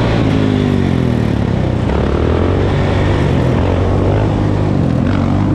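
ATV and dirt bike engines running close by, their pitch falling and rising several times as the throttle is worked, mixed with road and wind rush.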